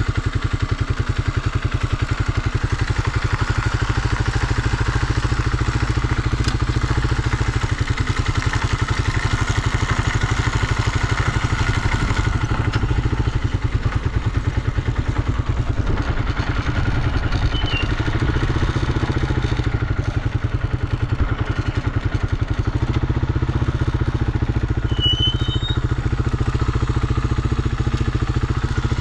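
Honda XL250S's single-cylinder four-stroke engine running steadily with an even, rapid exhaust beat that shifts briefly about two-thirds of the way through. It runs cleanly with no abnormal noises.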